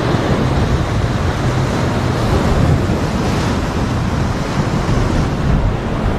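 Ocean surf surging and breaking against the lava-rock shoreline just below, a steady rush of whitewater that swells a little around the middle, with wind rumbling on the microphone.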